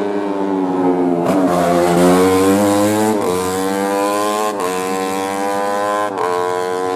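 Racing motorcycle engine at full throttle, accelerating hard up through the gears: its pitch climbs, then drops sharply at each of four upshifts.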